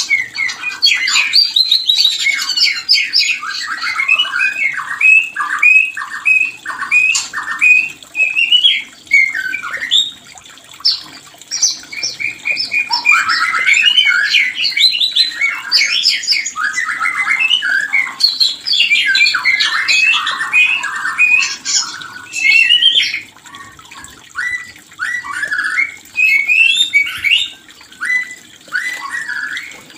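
White-rumped shama in breeding condition calling and singing in fast runs of short, repeated notes, with a couple of short pauses: the mating sound of the species.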